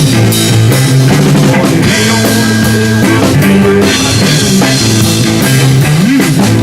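Live rock band playing an instrumental passage: drum kit, bass guitar and electric guitar, loud and steady, with no singing.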